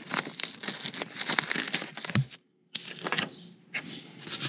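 Old duct tape and rotted debris crinkling and tearing as they are pulled by hand from the rusted-out floor of a Ford F100 cab. The rustling runs for about two seconds, stops briefly, then comes again more faintly.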